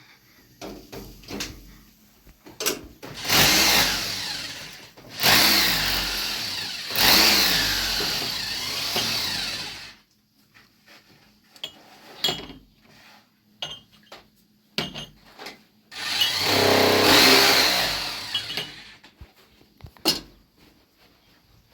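A power tool runs in three bursts of a few seconds each, with short knocks and clicks in between.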